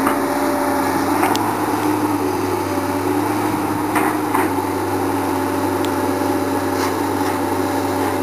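Komatsu PC220 excavator's diesel engine working steadily, with a hum of several steady tones, while the machine swings and lifts its boom. A few sharp knocks stand out, one about a second in and another about four seconds in.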